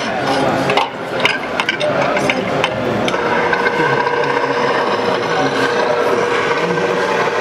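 Busy exhibition-hall din with a run of sharp clicks and ticks in the first few seconds, then a steady hum carrying a held tone.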